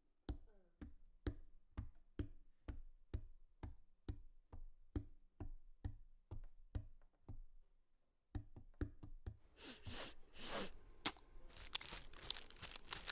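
Foley sound effects: steady knocking, about two knocks a second for about seven seconds, then a short pause and a few more knocks. Rustling, crinkling noises with scattered clicks follow near the end.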